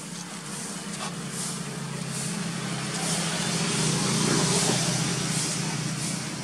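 A motor vehicle's engine passing nearby: a steady low hum that swells to its loudest about four seconds in, then eases off. A high hiss pulses roughly once a second over it.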